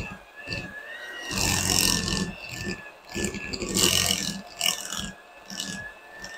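Electric hand mixer running with a steady whine, its beaters churning and breaking up chunks of cooked sweet potato in a glass bowl. Louder clattering stretches come about a second and a half in and again around four seconds in.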